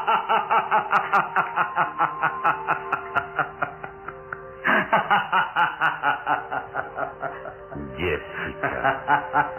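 Dramatic radio-serial music with held tones under rapid, pulsing laughter that comes in three bouts, each starting afresh with a loud burst.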